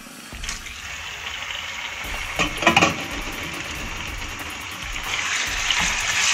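Small pieces of meat searing in hot ghee in a frying pan: a steady sizzle that builds and grows louder about five seconds in, with a few sharp knocks about two and a half seconds in.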